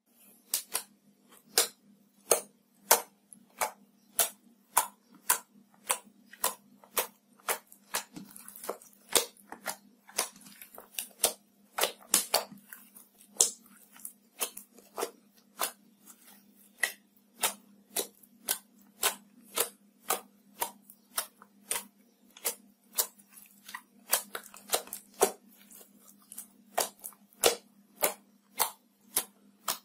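Clear glitter slime pressed and kneaded by hand, giving sharp clicking pops about twice a second, over a faint steady hum.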